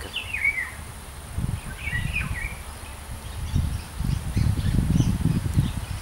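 Small songbirds chirping in short calls, with a couple of clear chirps at the start and about two seconds in and fainter ones later. Low gusts of wind rumble on the microphone, loudest in the second half.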